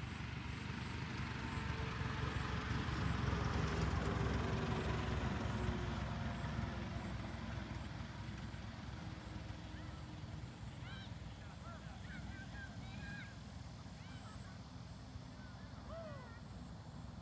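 Single-engine light aircraft's piston engine and propeller at takeoff power on its takeoff roll. The drone swells as the plane passes, then fades with a slowly falling pitch as it moves away. Short bird calls come in over the fading engine in the second half.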